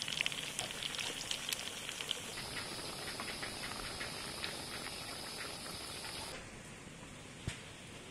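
Breaded chicken drumsticks deep-frying in hot oil: a steady sizzle with dense crackling pops. About six seconds in the sizzle stops, leaving a quieter background with a single knock.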